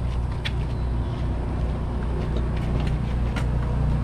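Steady low machine hum, like an engine or generator running, with a few light footsteps on asphalt.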